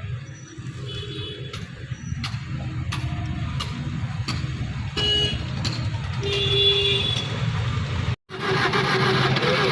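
Car engine idling, with sharp clicks about every two-thirds of a second and short horn toots around five and seven seconds in. The sound drops out for a moment near the end, then comes back louder.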